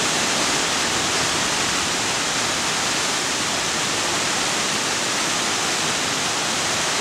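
Rushing water of a cascading stream, a steady unbroken hiss.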